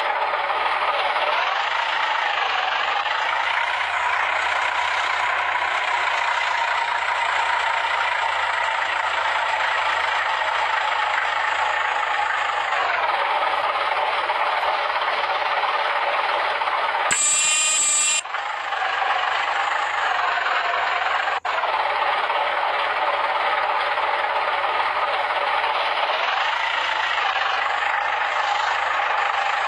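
Heavy road-construction machinery running steadily, with a dense mechanical noise whose pitch dips and rises a few times as the engine load changes. A brief sound of a different texture cuts in a little past halfway.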